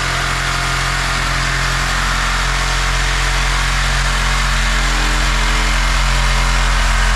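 Reciprocating saw running steadily under load as its blade cuts through the steel wall of an old oil tank, a steady buzzing hum with a harsh metallic hiss.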